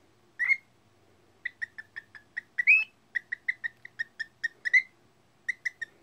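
Cockatiel chirping: one short call, then a fast run of about twenty clipped, same-pitched chirps, about five or six a second, and three more near the end.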